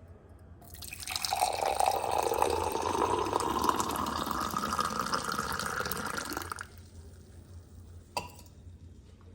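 Water pouring into a vessel, its pitch rising slightly as the vessel fills, stopping about two-thirds of the way through; a short knock follows.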